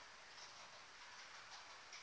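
Faint, irregular ticking of a Piko Vectron model locomotive and its freight wagon rolling slowly along model railway track, over a low hiss.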